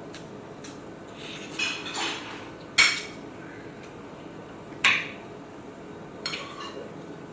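Dishes and cutlery clattering: a short scrape and rattle, then two sharp ringing clinks about two seconds apart, then a few lighter clinks near the end.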